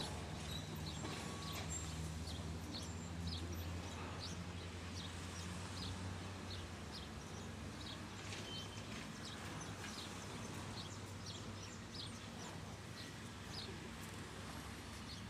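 Low diesel engine hum from the rail machine fades out about halfway through, over steady outdoor background noise, with small birds chirping in short high notes again and again.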